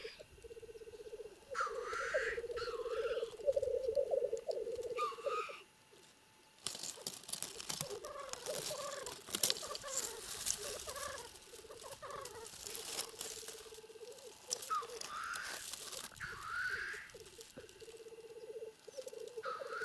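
Black grouse cocks displaying at a lek: a rolling, bubbling coo, broken by short rising hissing 'chu-whee' calls. For several seconds in the middle, a rough rustling noise covers the cooing, which comes back steady near the end.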